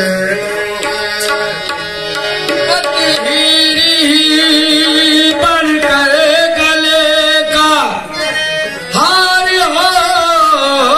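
Qawwali music: harmonium with a male voice holding long, sliding, ornamented notes over hand-drum strokes, dipping briefly about eight seconds in.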